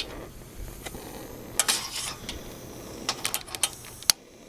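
Long-nose butane grill lighter clicking as its trigger is pulled again and again to light paper kindling, with light metallic knocks and rattles of its tip against the grill grate and the charcoal chimney. The clicks are scattered at first, then come in a quick run of about five, with a last sharp click near the end.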